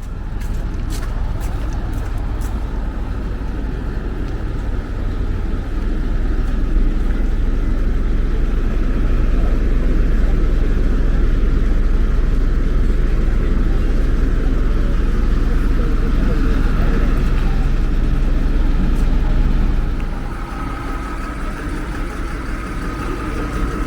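Nearby motor vehicle engine running with a steady low rumble that drops in level about twenty seconds in, when a thin steady high tone comes in.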